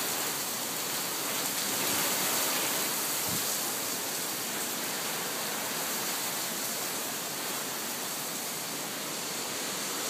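Heavy rain pouring down in a steady hiss.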